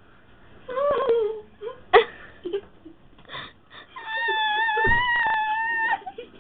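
A boy's voice making wordless straining noises while lifting dumbbells: a short moan about a second in, then a high-pitched note held for about two seconds near the end. A sharp knock about two seconds in and a low thump partway through the held note.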